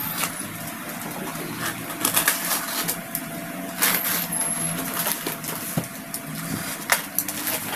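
A cardboard-wrapped parcel being torn open by hand: its packaging crackles and rips in a string of short sharp sounds, loudest about two, four and seven seconds in.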